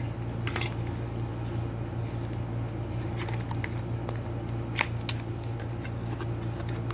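Hands handling small white cardboard boxes: scattered light taps and scrapes of card, with one sharper tap about five seconds in, over a steady low hum.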